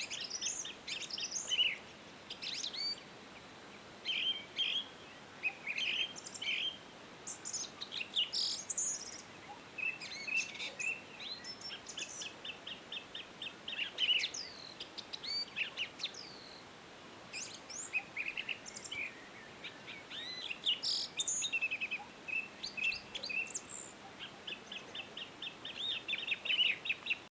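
Songbirds chirping and calling, several overlapping voices of short high notes, with quick trills of rapidly repeated notes now and then.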